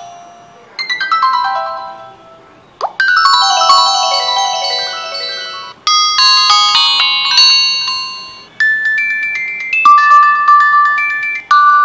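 Jio Bharat B2 keypad phone's loudspeaker playing short electronic alert-tone melodies one after another as the message alert tone list is scrolled, each preview cut off when the next tone starts, about every three seconds.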